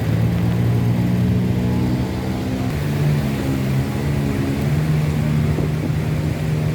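An engine running steadily, a loud low hum whose pitch shifts about three seconds in.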